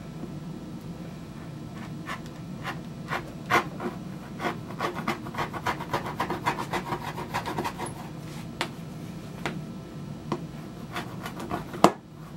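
Knife blade cutting and scoring leather in a run of short scraping strokes, quickening to several a second in the middle and then thinning out. A sharp click comes near the end, over a steady low hum.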